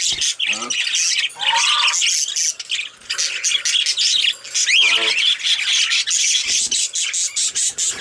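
Male budgerigars chattering and warbling nonstop, a dense run of fast high chirps and squawks.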